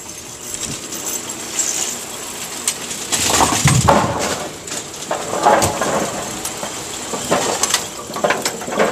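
Brunswick pinsetter running a cycle: bowling pins clatter and knock irregularly as they drop into and ride the pinwheel, with heavier bursts of clatter about three and a half seconds in and again around five and a half and seven and a half seconds. This lane's pinwheel has its rubber silencer cord in place, so it runs without the metallic gonging vibration.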